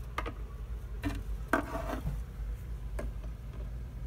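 Handling noise from plastic toy figures being moved about a cardboard set: a few soft knocks and rubs over a low steady hum.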